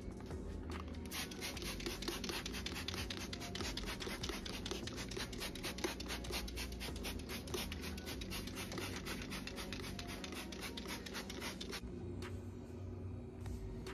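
Rapid, even scrubbing strokes on the glass cooktop of an electric stove, scratchy and rhythmic, running for about ten seconds and stopping abruptly near the end.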